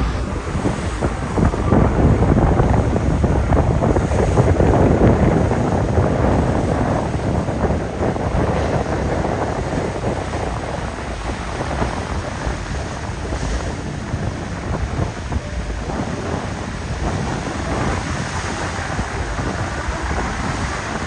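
Breeze buffeting the microphone: steady wind noise with a low rumble, gusting louder about two seconds in and easing off after about six seconds.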